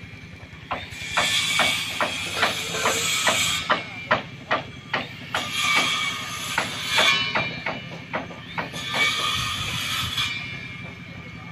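Hammer blows on timber at a building site: sharp irregular knocks, about two or three a second, starting about a second in and stopping shortly before the end.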